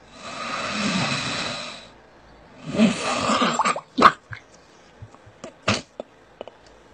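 A seal breathing out through its nostrils in two long, loud, breathy exhales, the second starting just under three seconds in, followed by a string of short sharp clicks and snuffs.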